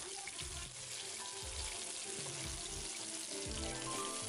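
Besan-and-curd-coated vanjaram (mackerel) pieces sizzling steadily in hot mustard oil in a nonstick pan, freshly laid in, with soft background music.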